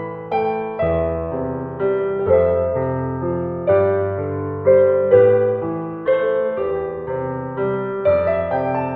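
Slow piano melody played on a Casio WK-110 keyboard's piano voice. It moves through sustained chords, with a new note or chord struck about once a second, and each one fades as it rings.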